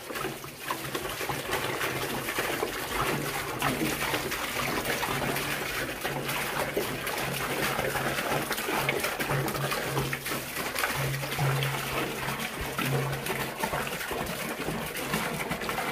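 Water pouring steadily from an upturned 5-gallon water jug into a plastic sump pump basin that already holds some water.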